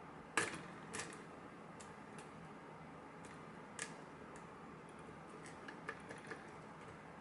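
Small metallic clicks and ticks of a lock being worked with a key: a sharp click about half a second in and another at about a second, then lighter irregular ticks. The key does not seem to fit the lock.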